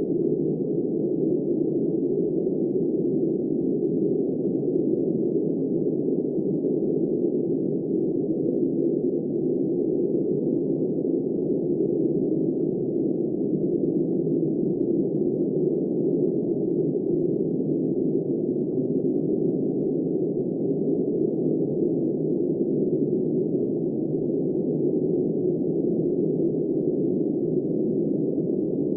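Steady, muffled wind noise, even throughout with no gusts or changes, all in low and middle pitches with nothing bright or hissy on top.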